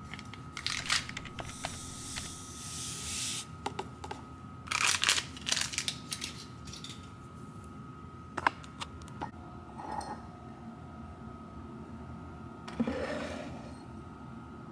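Small clicks, taps and rustling of objects being handled, with a sharper click about halfway through, over a faint steady high-pitched hum.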